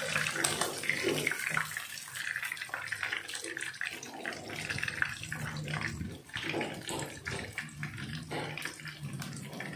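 Batter-coated fish frying in hot oil in a wok, the oil sizzling with a steady crackle, while a wooden spatula scrapes and knocks against the pan as the fish, fried crisp, is turned and lifted out.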